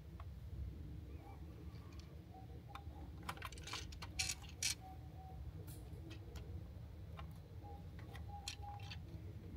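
Hard plastic parts clicking and knocking as 3D-printed add-on pieces are handled and fitted onto a plastic Transformers action figure. There is a cluster of sharp clicks about three to five seconds in and a few more near the end, over a steady low hum.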